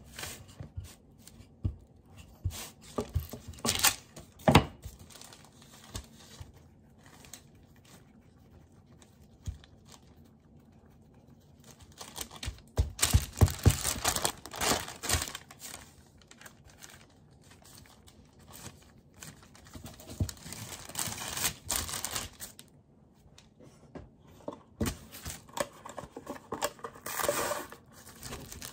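Baking paper crinkling and rustling in irregular bursts as bread dough is rolled and folded in three on it, the loudest about halfway through. Near the end comes the crackle of plastic cling film being pulled from its box.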